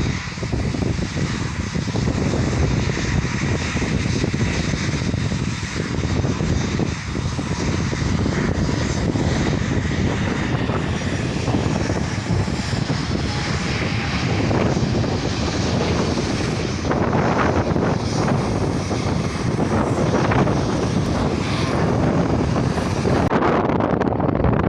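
Airliner engines at takeoff power: a loud, steady rush of engine noise with a deep rumble underneath.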